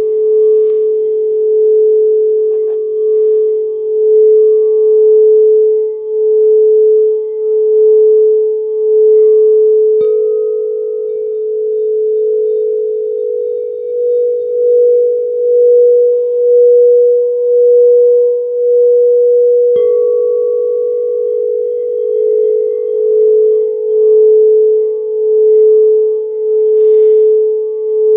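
Singing bowls ringing in one long, steady tone with a slow pulsing wobble. About ten seconds in a fresh strike brings in a slightly higher note, and about twenty seconds in another strike returns to the lower one.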